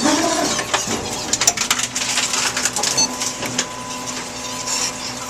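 Tomra T×2 reverse vending machine taking in a plastic bottle: its motor runs with a steady hum that starts about a second and a half in, under a crackle of plastic and many sharp clicks.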